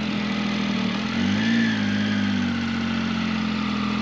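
Triumph Tiger 800's three-cylinder engine running just after start-up, mostly steady, with a brief slight rise in revs about a second and a half in.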